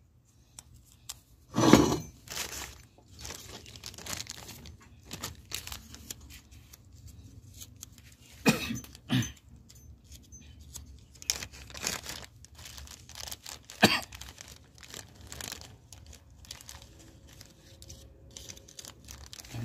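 Parts of a truck brake valve and a plastic repair-kit bag being handled on a workbench: crinkling plastic and scattered knocks and clicks of metal parts over a low steady hum. The loudest knocks come about two seconds in and near fourteen seconds.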